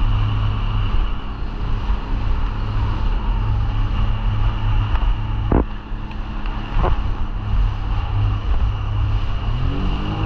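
Jet ski engine running steadily, its pitch starting to swing up and down near the end. Two brief sharp knocks come about halfway through.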